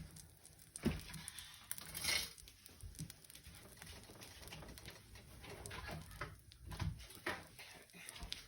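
A kitchen knife cutting a toasted grilled cheese sandwich in half: faint scattered knocks against the plate or board, with a brief rush of noise about two seconds in.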